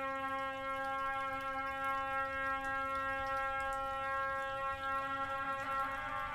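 A single drone note held at one steady pitch, rich in overtones, in the background music.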